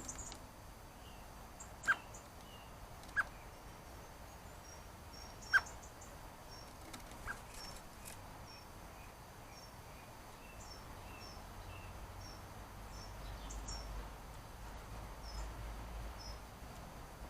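Many short, faint high bird chirps and calls, with four sharp taps in the first half. A low rumble comes in after about twelve seconds.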